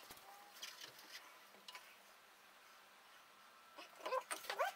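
Faint handling clicks, then about four seconds in a short run of squeaky, squelching sounds as a plastic bottle of wood glue is squeezed into the housings of a stair string.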